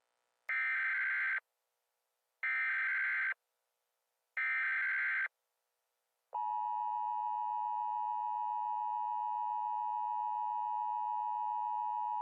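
Emergency Alert System alert tones: three short bursts of the digital SAME header, a rasping data warble of about a second each with a second between them. About six seconds in, the steady two-tone attention signal starts and holds.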